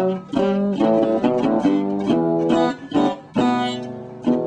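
Metal-bodied resonator guitar playing a blues tune: picked notes and chords struck several times a second, each ringing on.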